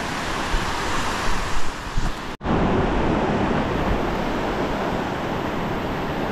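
Ocean surf washing onto the beach, a steady rush of noise; the sound drops out for an instant about two and a half seconds in.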